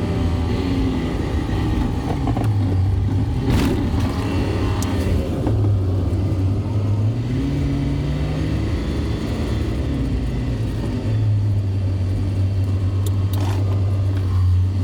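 Heavy diesel engine running, its pitch rising and falling several times as the engine speed changes, with a brief sharp click about a third of the way in.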